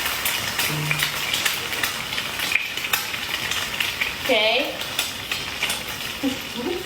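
Food sizzling as it fries in a pan, with a utensil clicking and scraping against the pan now and then.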